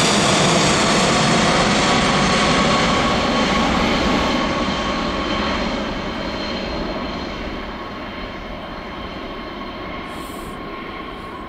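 Boeing 747-400F's four turbofan engines at climb-out power: a loud rumble with a whine that drifts slightly lower in pitch. It fades gradually from about four seconds in as the jet climbs away.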